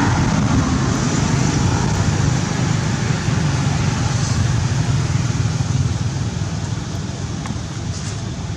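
Steady low rumbling noise throughout, with a few faint ticks near the end.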